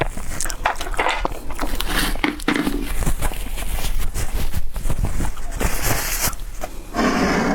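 Close-miked eating sounds: chewing with many small clicks and mouth noises, and two longer, louder noisy bursts in the last two seconds.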